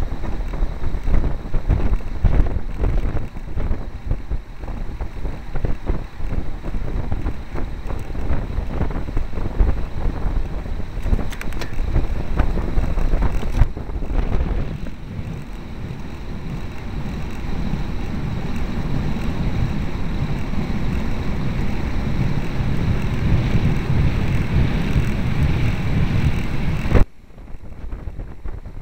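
Wind rushing over the microphone of a camera on a moving road bicycle, gusty and buffeting at first, settling into a steadier rush about halfway through, then dropping sharply near the end.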